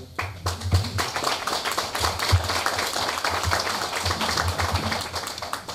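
Audience applauding, a dense patter of many hands clapping that dies away near the end, with a few low thumps underneath.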